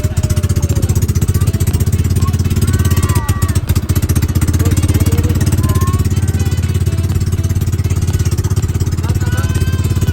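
A small engine running steadily at close range, with a fast, even firing pulse throughout.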